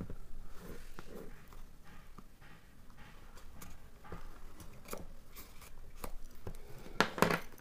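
Hands handling a plastic-wrapped product box: scattered light taps, clicks and rustles, with a sharper cluster of clicks about seven seconds in.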